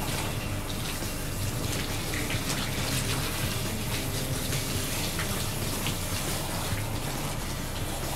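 Handheld shower head spraying water steadily onto a wet standard poodle's curly coat as it is rinsed, running water with splashing and dripping.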